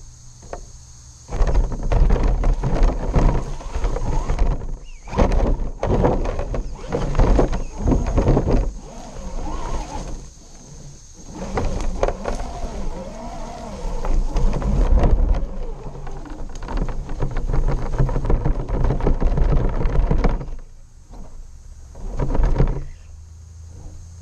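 RC rock crawler's motor and gears whining in stop-start bursts as it climbs over rocks and roots, with knocks, rattles and rumble from the body and onboard camera jolting over the terrain.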